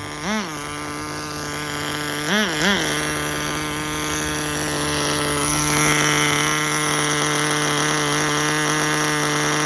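Nitro glow engine of a Tamiya TGS-R RC car running at a steady high speed. There is a quick rev up and back down near the start and two more about two and a half seconds in. The owner fears the engine may need a rebuild and suspects a bad carburetor.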